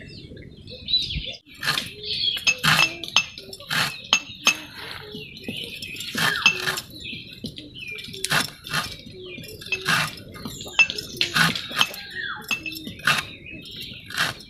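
Birds chirping: a busy string of short, sharp chirps every half second or so, with shorter, lower calls mixed in beneath.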